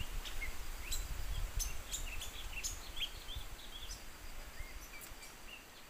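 Small songbirds calling with short, quick chirps and upward-sweeping whistles, scattered irregularly. Under them is a low rumble that fades away over the first few seconds.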